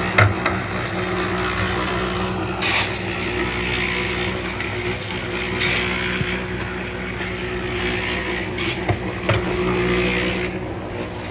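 An engine or motor running steadily at an even speed, with a sharp knock about every three seconds.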